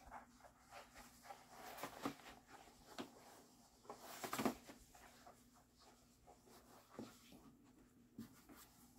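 Faint, scattered rustling and soft handling noises of a long mat being folded back up by hand, with a slightly louder cluster of rustles about four seconds in.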